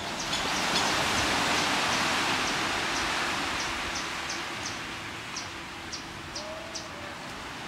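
Small waves breaking and washing up the beach, a steady hiss of surf that swells in the first couple of seconds and then eases off. Faint high ticks repeat about twice a second through the middle.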